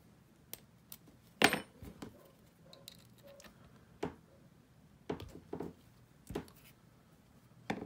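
Scattered light metal clicks and clinks of an Allen key working a fitting out of a paintball high-pressure regulator and its small parts being handled, about nine in all, the loudest about one and a half seconds in.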